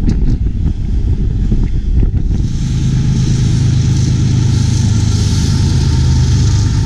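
Wind buffeting the microphone over a passing intermodal train. About two seconds in, this gives way to the steady low drone of CSX diesel locomotives passing close below, with a hiss over it.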